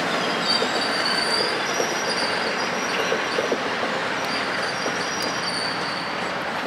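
Amtrak passenger cars rolling past: a steady rumble of steel wheels on rail, with a thin, high-pitched wheel squeal coming and going over it.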